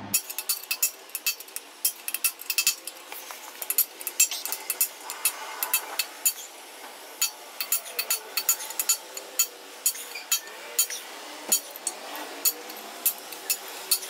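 Hammer striking a small chisel against the inside of a cast-iron Toyota 4A-GE engine block, an irregular run of sharp metallic clinks, several a second, chipping away casting flash around an oil return hole.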